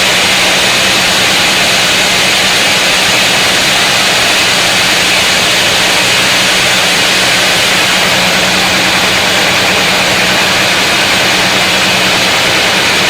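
Power saw cutting through a large mahogany log, its motor running at a steady pitch under load with a loud, even rasp of the cut.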